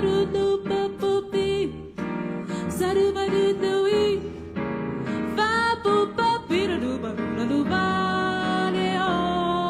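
Jazz music: a quick, bending melody line over piano accompaniment.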